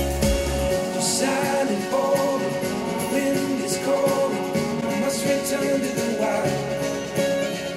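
A song with a singing voice played through Edifier active bookshelf speakers and picked up by room microphones; playback moves from the Edifier S2000MKIII pair to the Edifier R2750DB pair partway through.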